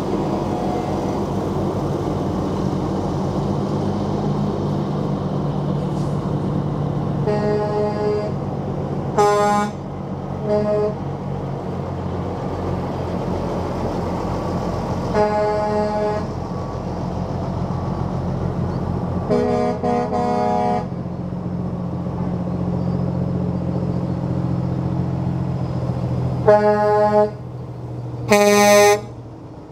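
Truck air horns blowing in short blasts, about seven times, the last two near the end the loudest, over the steady low running of heavy diesel trucks rolling slowly past.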